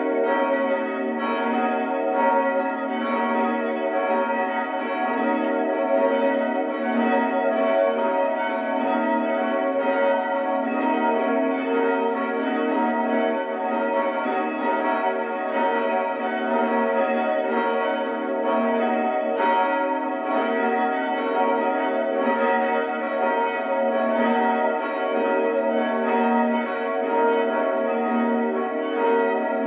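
Church bells pealing, several bells ringing over one another without a break.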